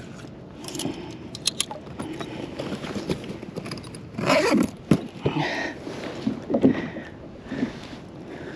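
Handling noise on a plastic kayak while a caught porgy is swapped on a stringer: a few sharp clicks of clips and gear, and short bursts of scraping and rustling, the loudest a little after four seconds in.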